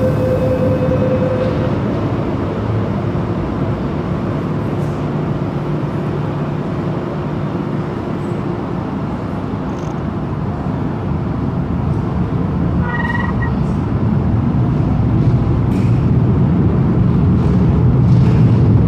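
MTR Kwun Tong Line metro train running through a tunnel, heard from inside the train: a steady, loud low rumble of wheels on track that eases a little midway and builds again near the end. A steady whine fades out early on, and a brief high tone sounds about 13 seconds in.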